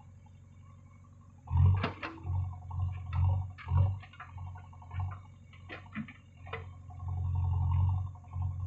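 JCB backhoe loader's diesel engine working the rear digging arm, running in loud pulses with several sharp knocks and clanks from the arm and bucket. It is low for the first second and a half, then gets louder and swells again near the end.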